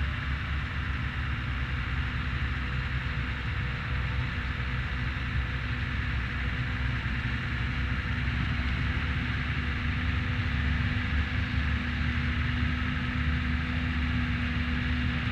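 Heavy farm machinery running steadily: a diesel engine's low rumble with a constant hum over it, unchanging throughout.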